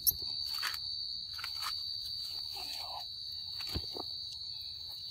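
Steady high-pitched insect drone, with scattered light clicks and rustles of movement in leaf litter.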